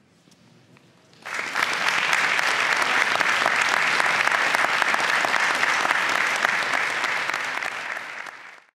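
Audience applauding, starting suddenly about a second in and fading out near the end.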